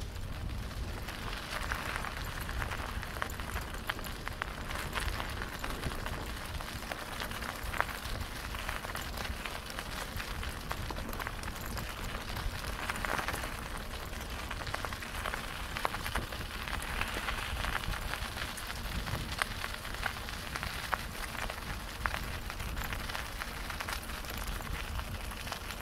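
Bicycle tyres rolling over a gravel track: a steady, irregular crackle of grit under the wheels, with a low rumble underneath.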